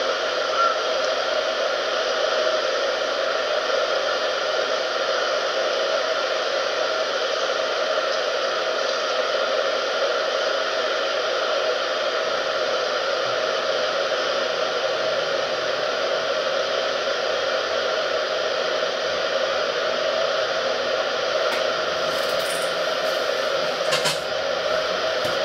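A steady whooshing noise, even and unchanging, with a faint click near the end.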